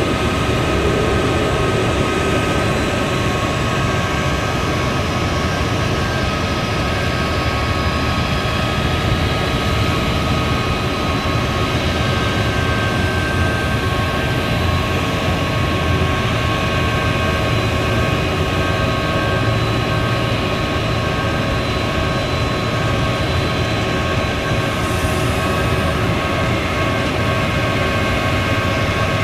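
Crane truck engine running steadily to drive the hydraulics while the National 9125A telescopic crane's boom is raised, with a steady whine over the engine's rumble.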